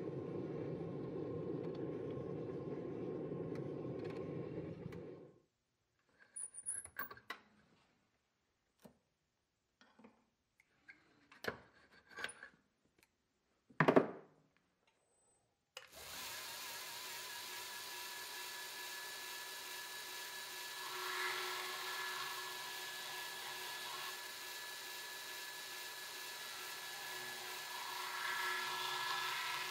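Belt grinder running steadily, with a steel blade pressed to the belt twice, the second time near the end. Before the grinder starts there are scattered clicks and knocks in the shop, the loudest a sharp clunk about halfway through. At the very start there is a few seconds of low steady rushing noise outdoors.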